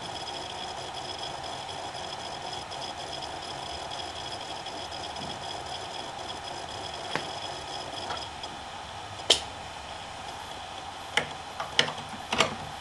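Seagate BarraCuda ST2000LM015 2.5-inch hard drive spinning with a steady hum and a high-pitched whine; the whine fades about two-thirds of the way through. Several sharp clicks come in the second half, the loudest about nine seconds in, with a quick cluster near the end.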